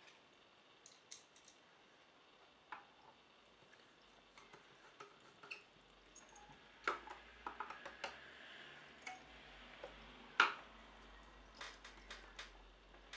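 Faint scattered clicks and taps of small screws and a screwdriver at a 3.5-inch hard disk being screwed into a Synology DS115j NAS, with one sharper click about ten seconds in.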